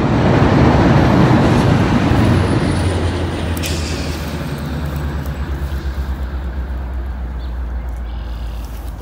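Road traffic, likely a heavy vehicle passing: a loud rushing noise over a steady low rumble, loudest in the first couple of seconds and then slowly fading.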